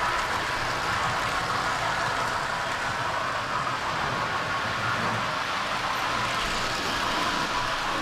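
Model railway trains running on the layout's track: a steady running noise of wheels and motors as a rake of coaches passes close by and runs away round the curves.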